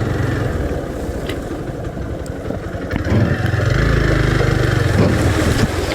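Hero Xpulse 200T's single-cylinder engine running as the motorcycle is ridden, its note growing louder a little past halfway.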